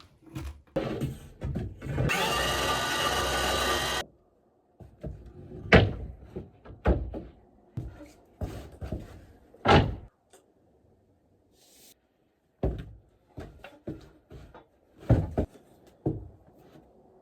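Knocks and thuds of wooden boards and tools being handled, a dozen or so scattered hits with quiet gaps between them. Early on, a steady mechanical whir runs for about two seconds and cuts off abruptly.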